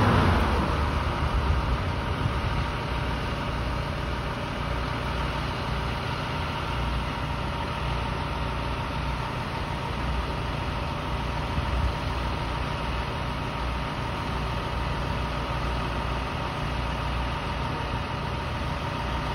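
Diesel engine of a large utility work truck idling steadily. A car passes close by at the start.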